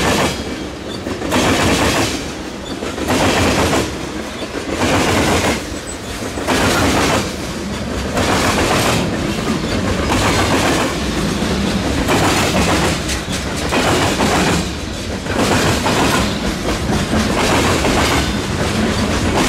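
Freight train cars rolling past close by, their wheels clacking over the track joints in a repeating rhythm about every second and a half, over the steady rumble of the train.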